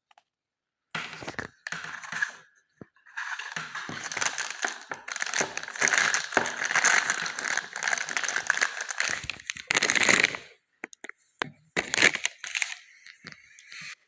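Packaging crinkling and rustling as it is handled and opened, with a few sharp clicks near the end.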